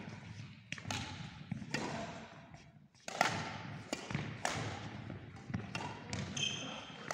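Badminton rally in an echoing sports hall: a string of sharp racket-on-shuttlecock hits and footfalls on the court, each trailed by hall reverberation. A short high squeak of shoes on the court floor comes near the end.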